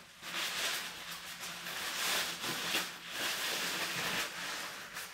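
Thin synthetic raincoat fabric rustling and crinkling in uneven surges as the raincoats are pulled about and spread out by hand.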